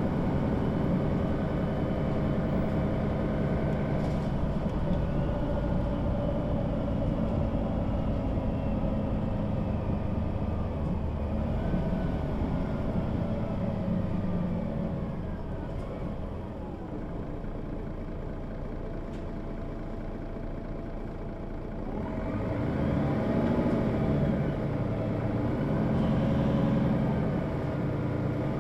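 Mercedes-Benz O 530 G Citaro articulated bus under way, its diesel engine running steadily. About halfway through the engine note falls and quietens as the bus slows, then it climbs twice as the bus pulls away again through its automatic gearbox.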